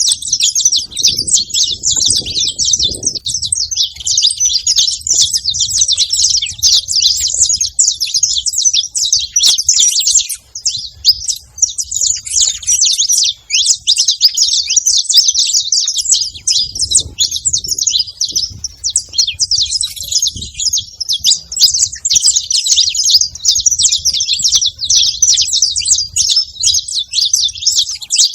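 Saffron finch chirping and singing: a dense, unbroken run of rapid high chirps, with a faint low rumble underneath at times.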